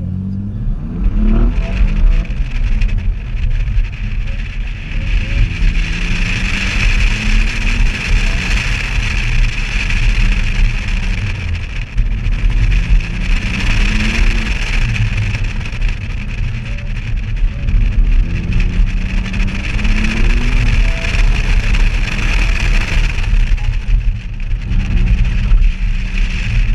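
BMW car engine pulling hard and easing off several times, its pitch rising with each acceleration, under a heavy low wind rumble on an outside-mounted microphone.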